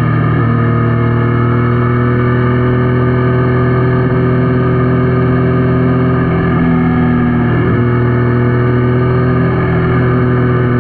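Yamaha Niken's 847 cc inline-three engine running at a steady cruising pitch under the rider, its note briefly shifting about seven seconds in.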